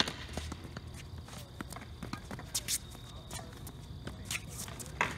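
A tennis ball struck sharply by a racquet close by, then a rally on an outdoor hard court: fainter racquet hits and ball bounces, with tennis shoes scuffing and squeaking as a player runs.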